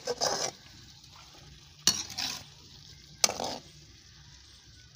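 A slotted metal spatula stirring potatoes, cauliflower and peas in a metal karahi, three scraping strokes that each start with a sharp clank against the pan, with a faint sizzle of the frying vegetables between them.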